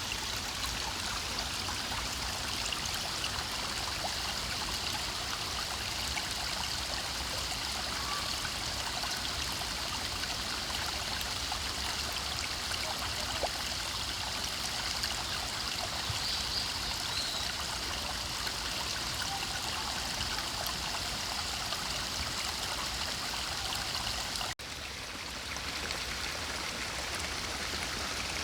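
Forest stream flowing steadily with an even rushing, trickling sound. About three-quarters of the way through it cuts off suddenly and switches to another stretch of water, a little quieter.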